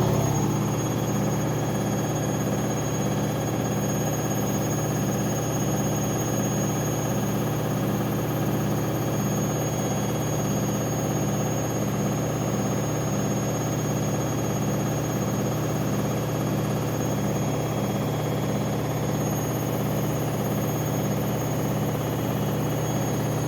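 Washing machine on its spin cycle, the drum turning fast with a steady hum and a regular pulse about once a second, plus a thin high whine.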